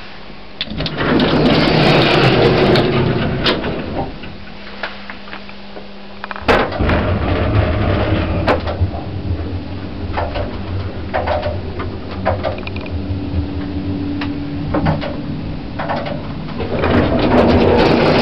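1980s Stannah lift in operation. A sharp click about six and a half seconds in is followed by a steady low motor hum with scattered clicks, and there are louder noisy stretches in the first few seconds and again near the end.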